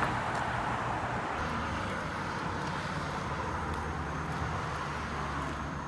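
Steady road noise outdoors: a low rumble with a hiss above it, easing off slightly toward the end.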